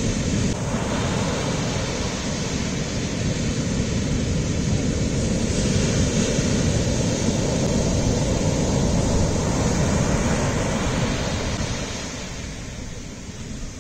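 Shorebreak surf: a steady rush of breaking waves and whitewater washing up the beach, heavy in the low end, easing a little in the last couple of seconds.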